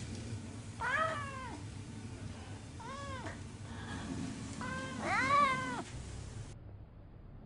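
Orange tabby cat meowing three times, each call rising then falling in pitch. The third, about five seconds in, is the longest and loudest.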